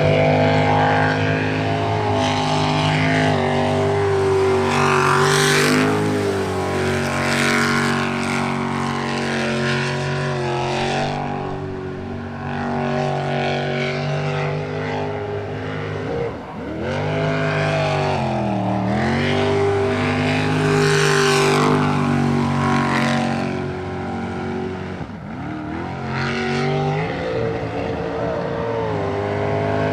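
Jet sprint boat's engine running hard at high revs, its pitch dipping sharply and climbing back again several times, about halfway through, shortly after, and again near the end.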